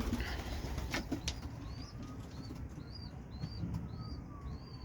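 Racing pigeons in a loft: a few wing flaps and knocks in the first second, then a short, high chirp repeating about twice a second.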